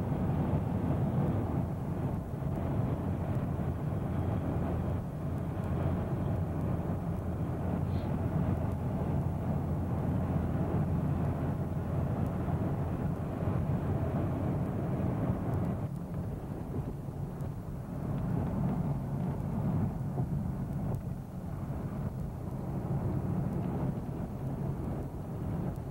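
Road noise of a car driving at highway speed, heard from inside the cabin: a steady low rumble.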